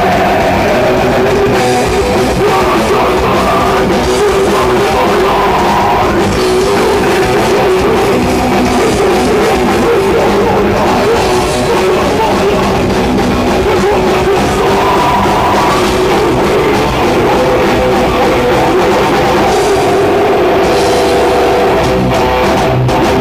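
Metal band playing live through a stage PA: distorted guitars, bass guitar and a drum kit, loud and continuous.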